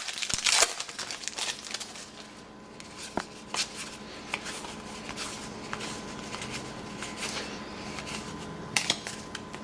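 Trading cards being handled and sorted by hand: scattered soft clicks and light rustles of card stock, with a louder rustle near the end. A faint steady hum runs underneath.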